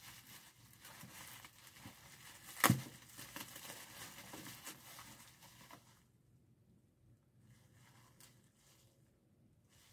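Plastic packing wrap rustling and crinkling as items are unpacked from a cardboard box, with one sharp knock about two and a half seconds in. The rustling stops about six seconds in, leaving only faint, intermittent rustles.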